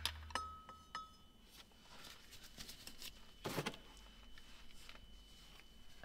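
Faint metallic clinks and knocks of hand tools working the driveshaft bolts, a few separate hits with the loudest about three and a half seconds in.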